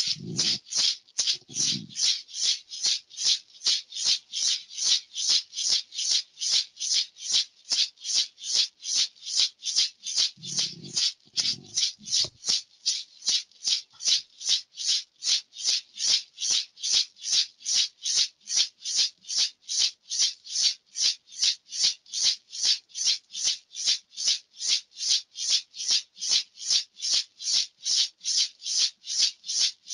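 A hand rattle shaken in a steady, even rhythm of a little over two shakes a second. Two pairs of low thumps sound under it near the start and again about ten seconds in.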